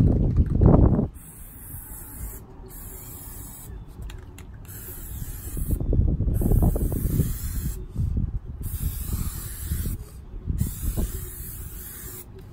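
Aerosol can of washable chalk spray paint hissing onto a car's side in a series of sprays a second or two long, with short pauses between them. Low rumbles come and go under it, loudest about a second in and again around six seconds.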